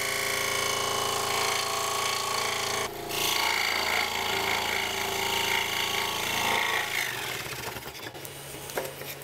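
Scroll saw running, its fine blade cutting a ring out of a thick wooden board: a steady machine hum under the rasp of the blade in the wood. It breaks briefly about three seconds in and grows quieter after about seven seconds.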